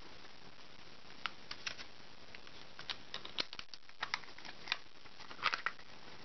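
Light plastic clicks and rattles of a clear waterproof action-camera housing being handled and unlatched, the camera slid out of it, busiest in the second half.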